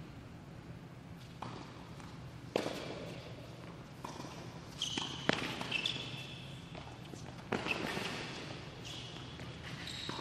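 Tennis ball struck by racquets in a doubles point: a serve and rally, with sharp hits every two to three seconds that echo in an indoor tennis hall. A few short shoe squeaks on the hard court come in the middle.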